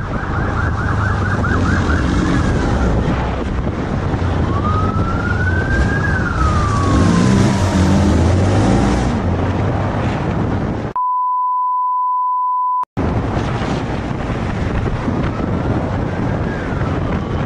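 Police motorcycle siren during a pursuit: a quick yelp at first, then a slow wail rising and falling, over the motorcycle's engine and wind noise. About eleven seconds in, all sound is cut for about two seconds and replaced by a steady censor beep.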